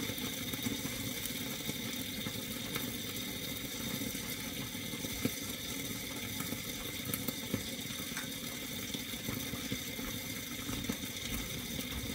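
Omelette eggs sizzling and bubbling softly in a hot skillet, steady, with a few faint ticks.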